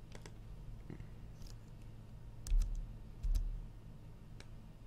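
Scattered single clicks of a computer mouse and keyboard over a faint steady low hum, with two low thumps about two and a half and three and a quarter seconds in.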